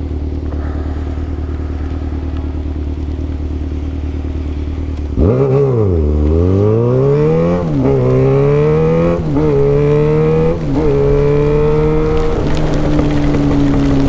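Yamaha XJ6 inline-four with an open exhaust idling, then about five seconds in it opens up much louder and pulls away, the pitch climbing through the gears with three quick dips at the upshifts before settling into a steady cruise.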